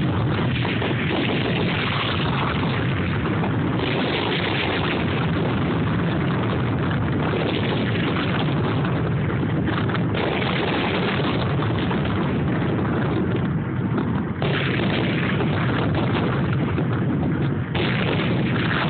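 Fireworks grand finale: a dense barrage of aerial shell bursts, the booms running together into one continuous rumble.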